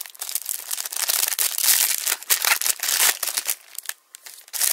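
Foil booster pack of trading cards being torn open and crinkled by hand: dense crackling of foil, loud for about three and a half seconds, then dying down before one last short crinkle near the end.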